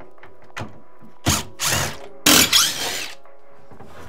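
Cordless drill-driver backing out the hinge screws of a louvered wooden closet door, in three short runs, the longest near the middle.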